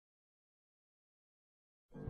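Digital silence, with background music starting abruptly just before the end.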